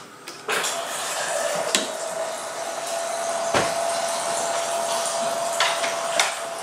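Linksprite mini CNC machine powered up: a steady whirring hiss with a thin high whine comes on about half a second in and holds. There is a sharp click near the middle.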